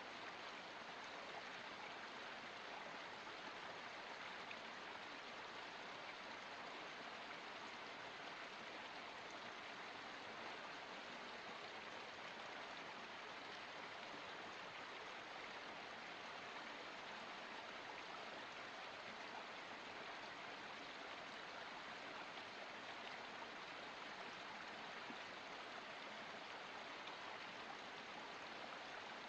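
Water of a small forest stream or spring flowing: a faint, steady, even rush with no breaks or distinct splashes.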